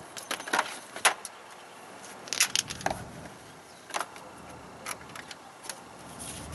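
Scattered metallic clicks and clinks from a set of heavy-duty jumper cables being handled, their clamps knocking together at irregular intervals.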